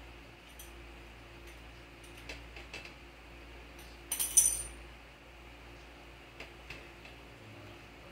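Faint scattered clicks over a low steady hum, with a short metallic jingling clatter, like keys or coins, about four seconds in.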